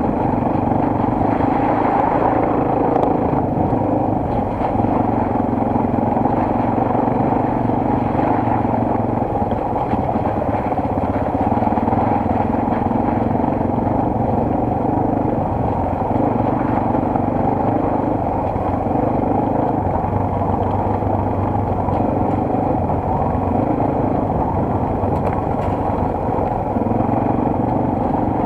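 Single-cylinder four-stroke enduro motorcycle engine running under way, its note changing several times as the throttle is worked, over steady rushing noise.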